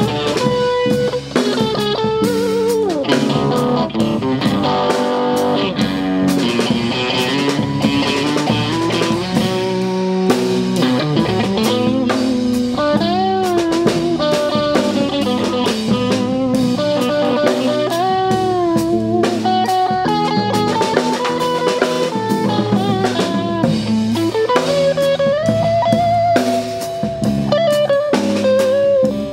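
Instrumental break of a blues-rock band: an electric guitar plays a lead line with bent and wavering notes over rhythm chords and a drum kit.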